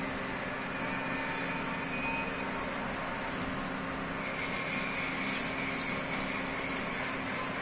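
Steady background hum and rushing noise, with a few faint light clicks about five and a half seconds in.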